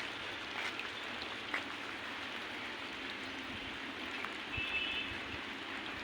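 Light rain falling steadily, a fine drizzle pattering with a few soft drop ticks. About four and a half seconds in there is a brief high-pitched tone.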